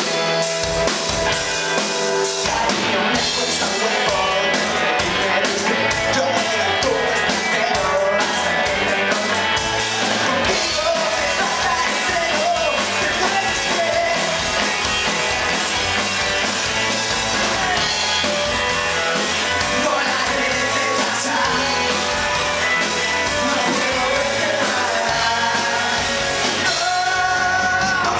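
Live rock band playing: two electric guitars, electric bass and a drum kit, with male vocals sung over them.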